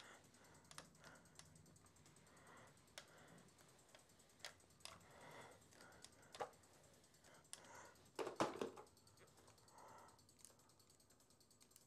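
Faint, scattered light clicks and fabric rustles of an iron being worked over cotton fabric on a wool pressing mat, with a slightly louder rustle about eight seconds in.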